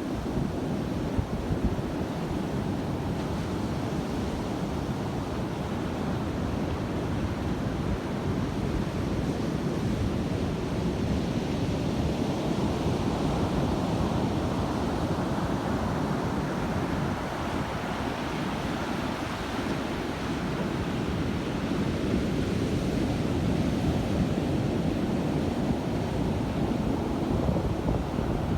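Ocean surf breaking and washing in a steady roar, swelling and easing slowly, with wind buffeting the microphone.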